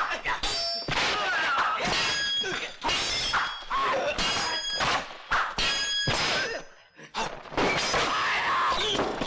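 Kung fu fight sound effects: a rapid run of punches, kicks and sabre clashes, several with a ringing metallic clang, among crashes and shouts. There is a short lull about seven seconds in.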